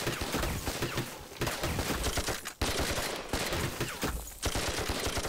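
Massed gunfire of a battle: a dense volley of many rapid shots, in several bursts with short lulls between them.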